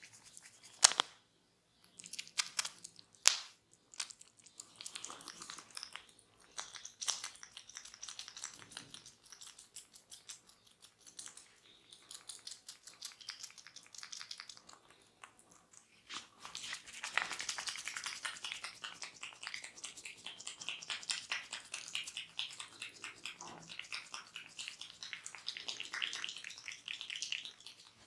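Close-up crackling and rubbing of a barber's fingers working over skin and hair in a massage. A few sharp clicks come in the first seconds, and a dense rapid crackle runs from about halfway on.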